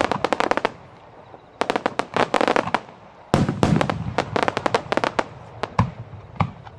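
Aerial fireworks exploding in rapid volleys of sharp crackling pops. There are three dense runs of a second or more each, then a couple of single reports near the end.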